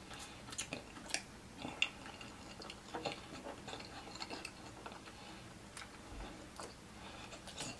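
Scattered soft clicks and crackles, irregularly spaced, of crispy fried chicken being picked off the bone by hand and chewed.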